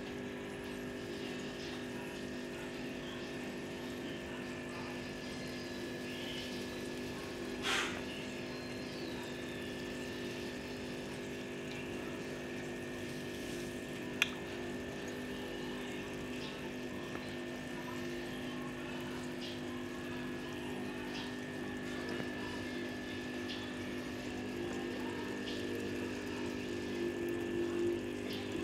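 Electric pond pump running with a steady hum, with water bubbling and trickling at the surface. Two brief clicks stand out, one about eight seconds in and a sharper one about fourteen seconds in.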